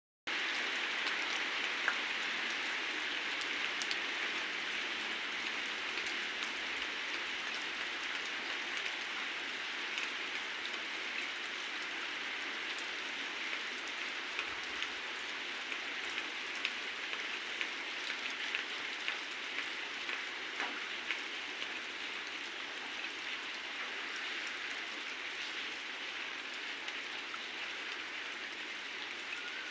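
Heavy rain falling steadily, with many sharp ticks of individual drops striking a nearby surface.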